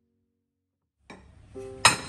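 Silence for about the first second, then soft plucked-string background music comes in. Near the end there is a single sharp clink of a ceramic bowl being set down on a stack of ceramic plates and bowls.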